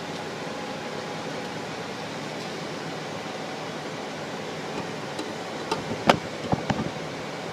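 Steady rushing background noise, with a quick cluster of sharp knocks or clicks about six seconds in.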